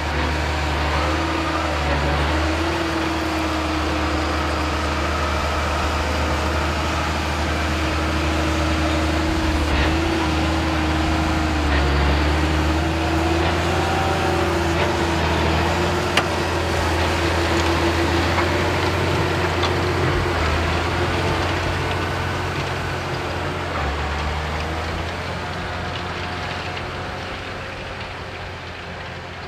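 Case IH Quadtrac 600 tracked tractor's diesel engine running steadily under load while pulling a nine-furrow mounted plough through stubble, its pitch wavering slightly. The sound fades over the last several seconds as the tractor moves away.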